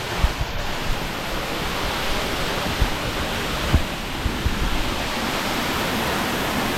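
Steady rushing of a nearby waterfall, with a few soft low thumps scattered through it.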